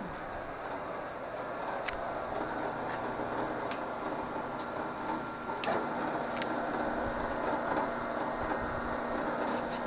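Combination mill-lathe milling an engine mount: the machine runs with a steady whirring cut, a few light ticks, and a steady hum that comes in a little after halfway.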